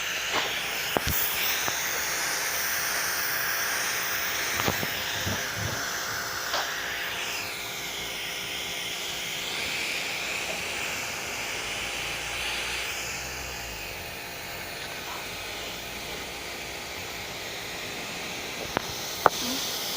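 Jacto Clean J6800 pressure washer spraying: a steady hiss of the water jet whose tone shifts slowly as the spray moves over the surface. A few short clicks and knocks come through.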